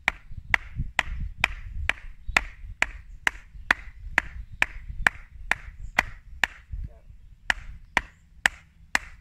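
A wooden mallet strikes the back of a splitting axe head, driving the blade down into a green willow log to split it. It makes a steady run of sharp knocks, about two a second, with a short pause about two-thirds of the way through.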